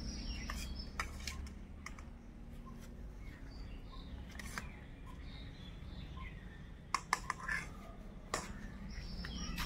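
A few light clicks and scrapes of a metal serving spoon against steel plates and a steel bowl as food is dished out, more of them near the end, over a low steady background.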